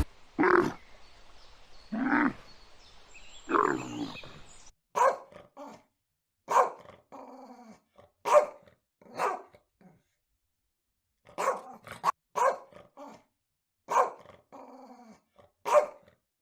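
A dog barking: single barks spaced a second or two apart, many followed by a quick softer second bark.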